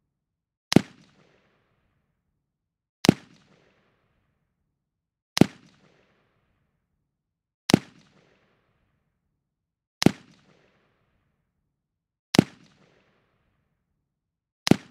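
Gunshot sound effect: a single sharp shot repeated evenly about every two and a half seconds, seven times, each with a short echoing tail.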